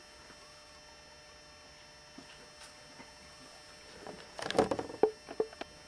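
Faint steady hum, then about four seconds in a quick cluster of clunks, clicks and rattles: handling noise as a plug is pulled out of the monitor.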